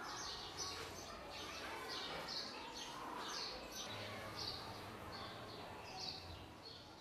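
Small birds chirping: short, high calls, each dropping in pitch, repeated about twice a second.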